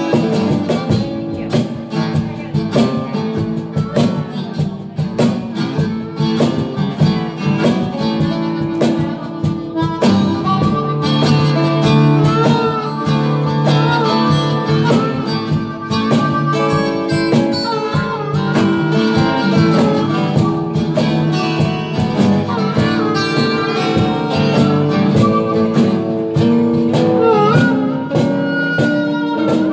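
Live blues-rock band playing an instrumental break: electric guitar chords under a harmonica lead line with bent, wavering notes.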